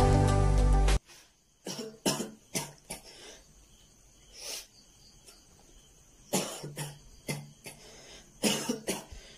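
Background music cuts off about a second in, and then a man coughs repeatedly in short fits: some single coughs, some in quick clusters of two or three.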